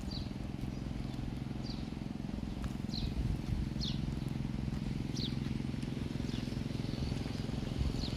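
A small bird gives short, falling chirps, about one a second, over a steady low mechanical hum.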